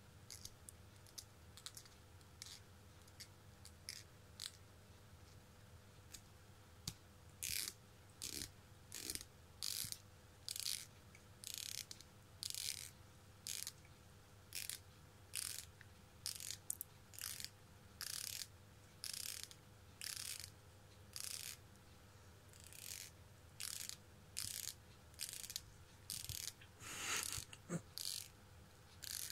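Plastic comb teeth strummed with a finger or fingernail: short zipping strokes, sparse and faint at first, then regular at about one a second. Near the end comes one longer, louder sound.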